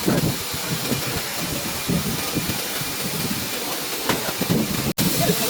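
Steady hissing machine noise of a nesting CNC router at work, with a brief dropout about five seconds in where the sound cuts out.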